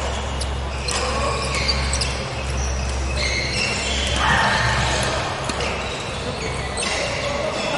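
Badminton play in a large sports hall: sharp racket hits on the shuttlecock and footsteps on the wooden court, echoing, over a steady low hum.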